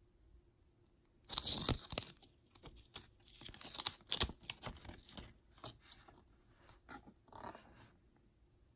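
A folded paper instruction leaflet being opened out: crisp paper rustling and crackling in short bursts, loudest about a second in and again around four seconds in, then dying down near the end.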